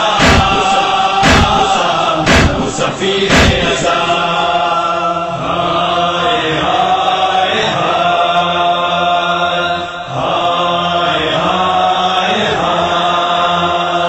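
Men chanting a Shia noha in chorus, long held notes in phrases of a few seconds. For the first three and a half seconds, sharp slaps of matam chest-beating keep time, about one a second, and then stop.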